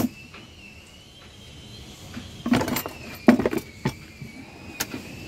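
Clattering and knocking in a kitchen drawer as a plastic cutting board is stacked in among cutlery and glasses, in several separate knocks with a cluster about halfway through. A faint, high, slightly wavering whine runs underneath.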